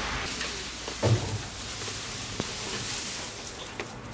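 Dry hay rustling as it is handled and tossed to the animals, with a soft thump about a second in.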